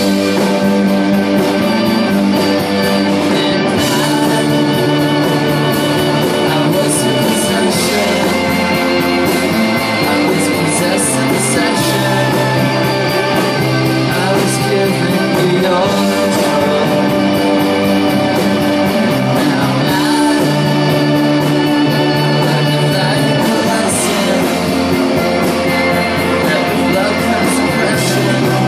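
Live psychedelic rock band playing loudly: electric guitar, drums with a steady cymbal beat, and a voice singing.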